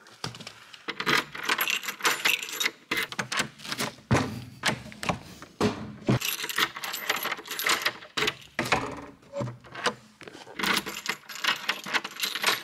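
Keys jangling and clicking at a door lock while a metal lever handle is rattled and worked, in a string of irregular sharp clicks, several tries before the door opens.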